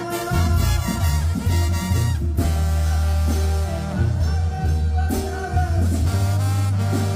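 Mexican banda music played live: a brass band with a strong bass line under held melody notes, with no clear lead vocal.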